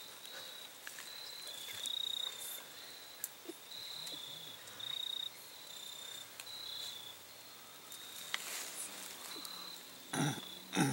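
Insects chirping in short, high, repeated trills, a few notes a second at two slightly different pitches, with a brief louder noise near the end.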